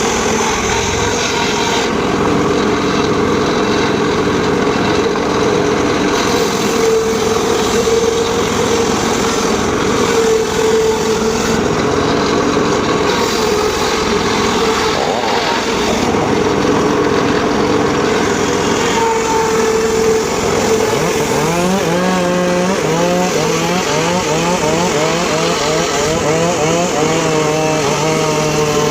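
Homemade circular saw bench running steadily while its blade saws teak wood, a continuous mechanical whine; about three-quarters of the way through, the pitch starts wavering up and down.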